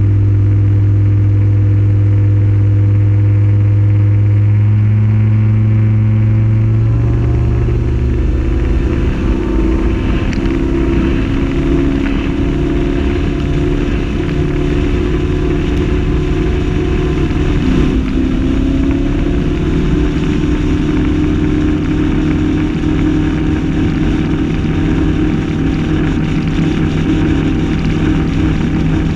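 A RIB's engine running under way. About seven seconds in, the strong low engine note gives way as the boat throttles back, and the engine then runs steadily at lower speed, with small shifts in pitch.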